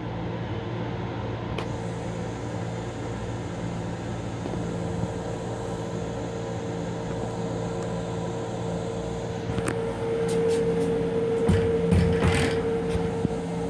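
Steady hum of the M7 railcar restroom's ventilation and onboard equipment, with a steady mid-pitched tone over a low drone. It grows louder about ten seconds in, with a few short knocks near the end.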